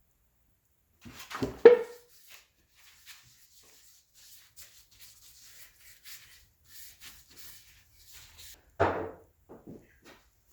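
A few solid knocks and clunks, as of objects or tools being handled and set down. The loudest comes about a second and a half in and rings briefly. Faint rustling and small scrapes follow, then another heavy knock near the end.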